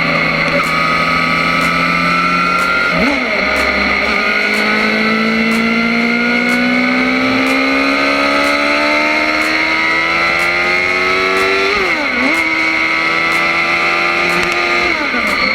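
Yamaha R1's inline-four engine through an Akrapovic exhaust under acceleration: its pitch climbs slowly for several seconds at a time and dips sharply at each gear change, about three seconds in, about twelve seconds in and near the end.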